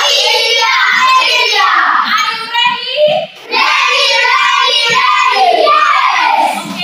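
A class of schoolchildren singing together loudly, with a brief break about three seconds in.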